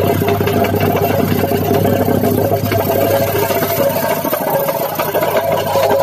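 Petrol-engined vibrating plate compactor running at working speed, rapidly tamping crushed rock into a road patch.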